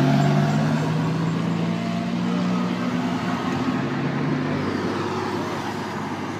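A car engine running at a steady pitch, fading gradually as it draws away.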